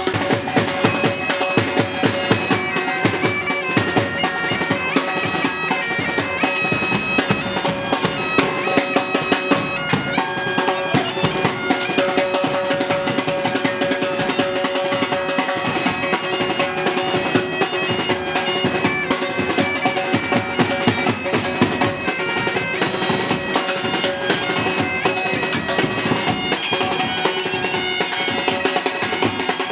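Pipe band playing: bagpipes sounding a steady drone under the chanter's melody, with a drum beating along.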